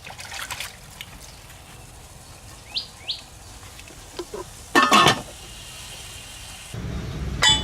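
Outdoor ambience with a bird giving two short rising chirps, and two louder sharp sounds, one about five seconds in and one near the end. A low steady hiss grows louder near the end.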